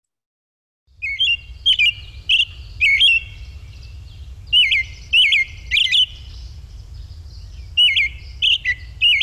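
American robin singing its caroling song, starting about a second in: groups of short whistled phrases with pauses between, over a low steady rumble.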